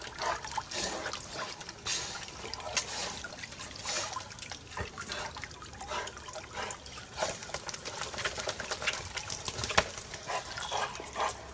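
Irregular splashing, trickling and dripping of shallow water as a wet retriever dog moves through it.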